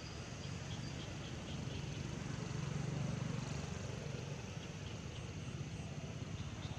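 Low engine rumble that swells about halfway through and then fades, with faint insect chirps over it.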